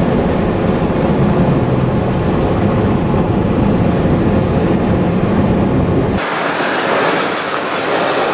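Strong wind buffeting the microphone, a low rumble that cuts off abruptly about six seconds in and gives way to a higher, hissing rush of wind.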